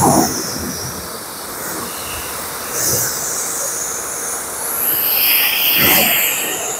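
Water spray from a rinse wand hitting a car's wet paint: a steady hiss that swells louder a couple of times.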